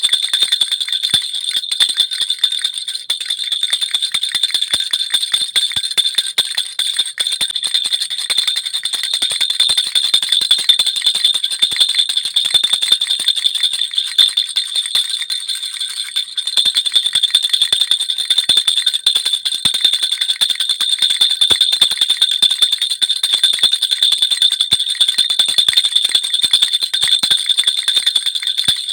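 Baby rattle (jhunjhuna) shaken continuously, a steady jingling of small bells with rapid tiny clicks and a bright ringing tone that stays even throughout.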